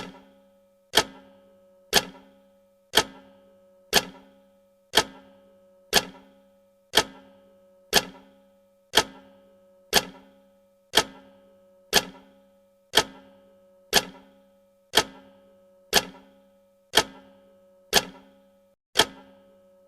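Clock-style tick sound effect of a countdown timer, one sharp tick every second at an even pace, each with a short ringing tail.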